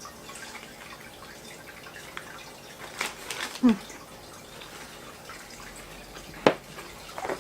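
Aquarium filter trickling and dripping steadily, with a few short sharp clicks and a brief low hum from the eater about halfway through.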